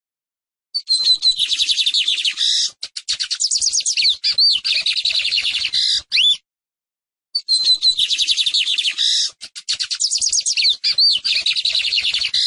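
Lined seedeater (Sporophila lineola) singing: two long song phrases of fast, high twittering notes mixed with clear whistled slurs, broken by a pause of about a second.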